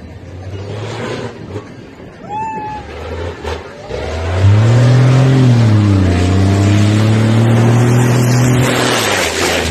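Rally truck's engine running hard as it comes down a sand dune and drives past close by. It grows loud about four seconds in, dips in pitch once, then holds steady before fading near the end. A short shrill whistle sounds about two seconds in.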